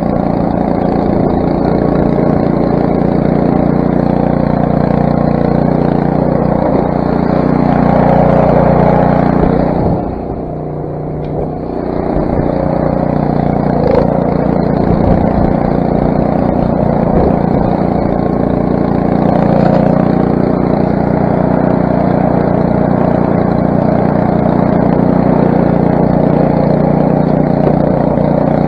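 Craftsman snowblower's 6 hp Briggs & Stratton single-cylinder engine running steadily, with a brief drop in level about ten seconds in.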